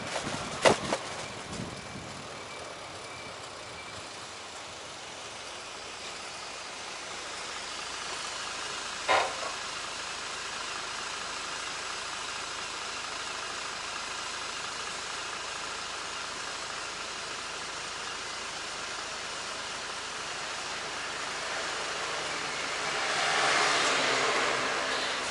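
City street traffic: a steady wash of road noise, with a vehicle passing more loudly near the end. Two short sharp knocks stand out, one right at the start and one about nine seconds in.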